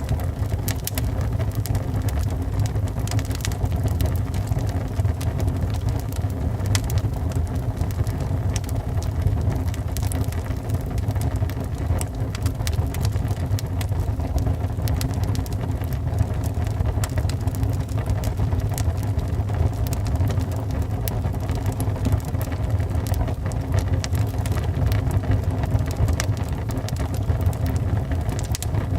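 Wood fire burning in a fireplace: a steady low rumble of the flames with frequent sharp crackles and pops from the burning wood.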